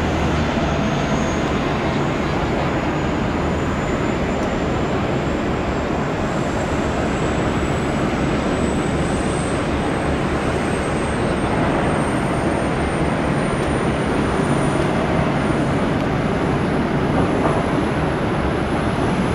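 Boeing 747 jet engines running: a steady, loud rumble with a thin high whine that rises slowly in pitch throughout.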